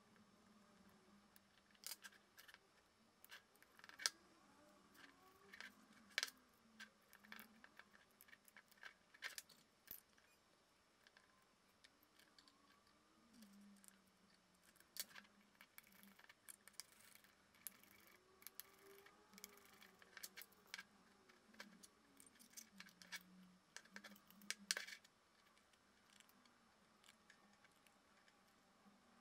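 Quiet, scattered clicks and taps of small plastic gimbal housing parts and metal tweezers being handled and fitted together, with a few sharper clicks among them.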